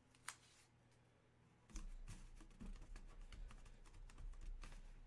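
Faint, irregular light tapping and clicking, like fingers typing or handling small items. From about two seconds in it runs over a low hum.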